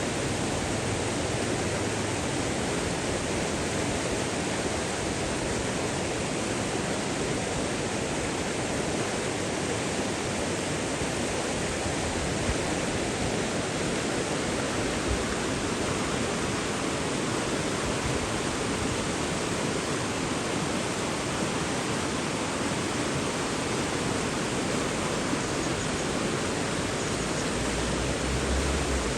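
Flowing water rushing steadily in an even, unbroken hiss that does not change.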